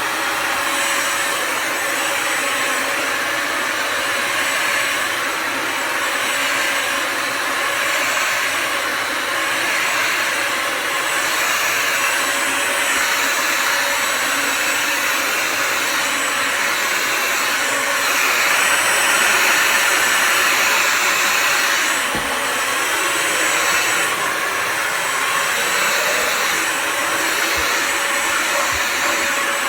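Bissell Symphony Pet vacuum-and-steam-mop's vacuum motor running steadily with a thin high whine over the airflow noise, growing a little louder about two-thirds of the way through.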